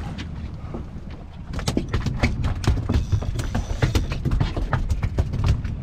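Spinning reel clicking in irregular spurts as a hooked fish pulls against the bent rod, over a low rumble of wind on the microphone.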